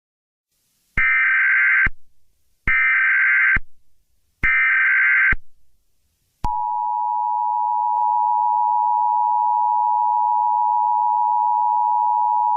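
Emergency Alert System tones. First come three SAME digital header bursts, each about a second long with short gaps between them. Then, about six and a half seconds in, the steady two-tone EAS attention signal starts and holds.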